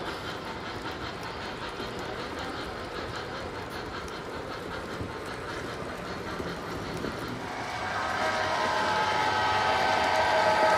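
O gauge model passenger cars rolling along three-rail track with a steady running clatter. About three-quarters of the way through, a model locomotive's sound system starts a held horn chord of several tones that grows louder and becomes the loudest sound.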